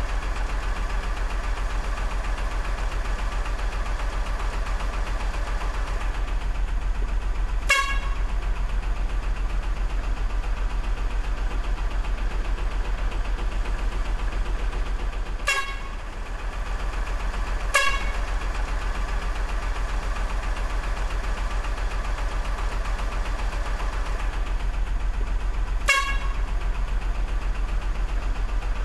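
Truck engine running steadily with a low hum, and four short horn toots a few seconds apart.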